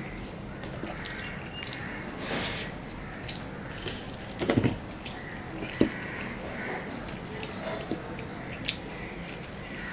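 Close-up eating sounds of a man eating rice and fish curry with his bare hand from a steel plate: moist squishing as his fingers mix the rice, chewing and mouth smacks. A few short sharp clicks, with a quick cluster of them about four and a half seconds in.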